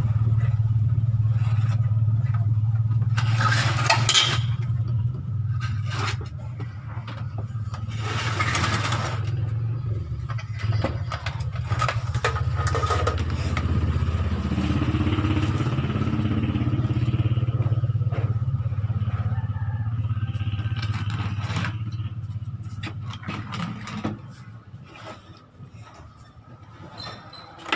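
Motorcycle engine running at a steady idle, fading away over the last few seconds. Two brief scraping noises come about three and eight seconds in.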